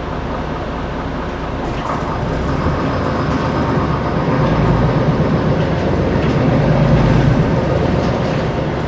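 Diesel bus engine heard from inside the empty passenger cabin as the bus drives. The engine rumble grows louder from about two seconds in, peaking around seven seconds, as the bus accelerates, then eases off slightly.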